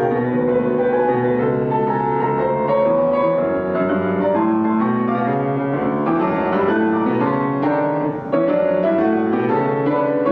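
Solo Steinway & Sons grand piano playing a dense passage of many overlapping notes, with a brief lull a little past eight seconds in.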